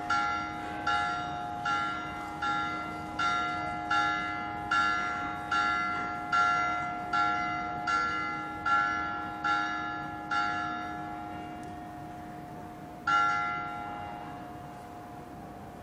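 Church bell struck in a steady, even rhythm of a little over one stroke a second, over a lingering lower hum. The strokes stop about 11 seconds in, and one last stroke about two seconds later rings out.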